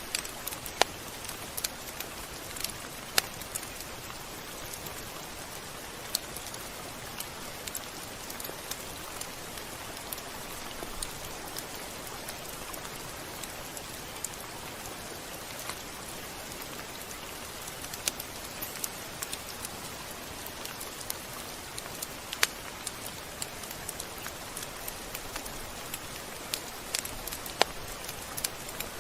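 Steady rain falling, an even hiss with scattered sharp ticks of drops striking a surface.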